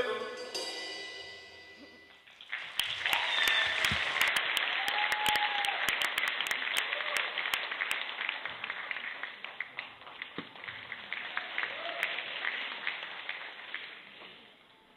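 The last notes of the backing music fade out, then an audience applauds, starting about two seconds in and dying away near the end.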